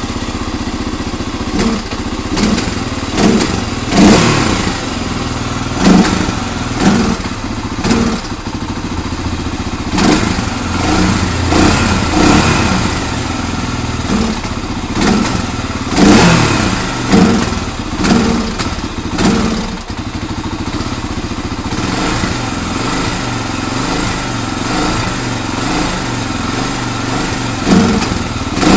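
Honda TRX300EX quad's air-cooled single-cylinder four-stroke engine idling, revved in many short throttle blips that each rise and fall back to idle. The owner says the carburettor clean-out has not cured its bogging under hard acceleration.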